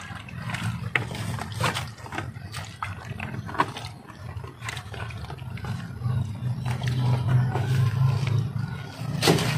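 Dog growling low and steady over its food, loudest in the last few seconds, with scattered sharp clicks throughout and a louder click near the end.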